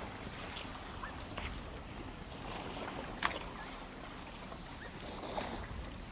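African elephants wading through floodwater: steady water sloshing and splashing, with a few short sharp splashes, the loudest about three seconds in.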